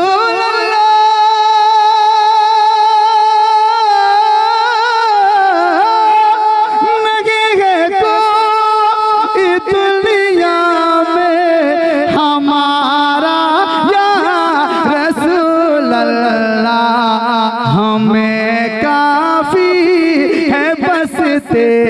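A man's voice singing a naat in classical style into a microphone, in a long drawn-out melodic passage. He holds a high note for the first few seconds, then moves through wavering ornaments, and settles onto a lower held note near the end.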